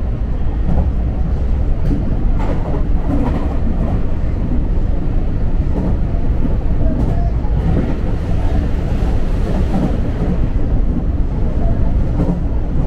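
Tobu Urban Park Line electric train running at speed, heard from inside the front car: a steady low rumble of wheels on rail with occasional clicks from the track. An oncoming train passes on the next track in the second half, adding a few seconds of rushing noise.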